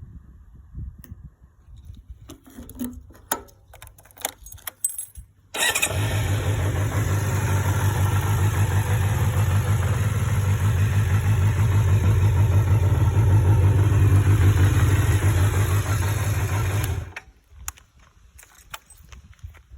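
Kawasaki Zephyr 400 inline-four engine running close by, with a dense, fast low pulse. It starts suddenly about five and a half seconds in and cuts off abruptly near the end, with light clicks and rattles before and after.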